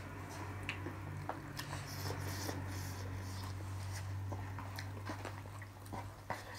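Soft eating sounds: scattered small clicks of plastic spoons on disposable plates and chewing of chatpate, a crunchy spiced puffed-rice snack, over a steady low hum.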